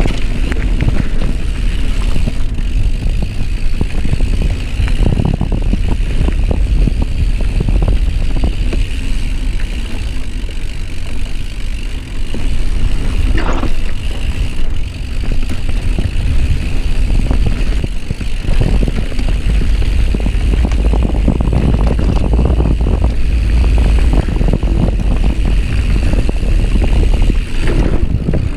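Mountain bike rolling along a dirt singletrack trail, heard from a chest-mounted camera: a steady low rumble of wind buffeting the microphone, with the tyres and the bike rattling and knocking over bumps.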